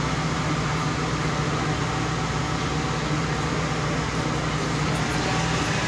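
A steady low engine drone under an even noise, with no breaks or sudden sounds.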